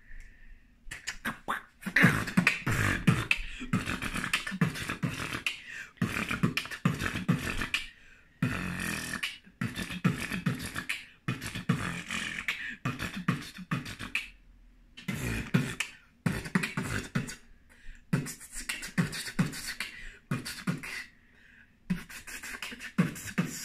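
A boy beatboxing: a fast run of mouth-made kick, snare and hi-hat sounds with buzzing in between, broken by several short pauses.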